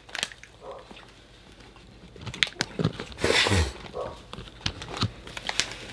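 Plastic popcorn bags being handled, with soft scattered crinkles and clicks, and popcorn being chewed. A short breathy rush about three seconds in.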